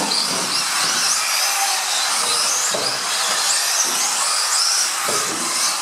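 Several electric radio-controlled off-road cars racing, their motors giving short high whines that rise and fall in pitch as they speed up and slow down, over a steady hiss.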